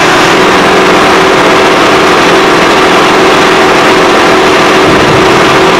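Case IH 540 Quadtrac tractor's diesel engine idling steadily while it warms up after sitting unused for a while.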